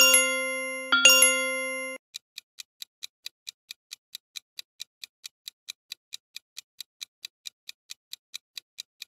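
Two bright electronic chimes about a second apart as quiz answer options pop up, then a countdown timer ticking steadily, about four ticks a second.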